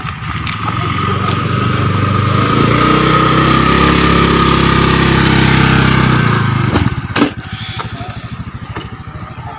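A motorcycle engine running as it rides past close by, growing louder over the first few seconds, then dropping away suddenly about six and a half seconds in. Two sharp knocks follow shortly after.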